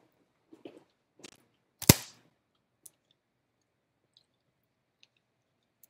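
Handling noises at a desk microphone: a single sharp knock about two seconds in, with a few soft rustles before it and faint clicks after.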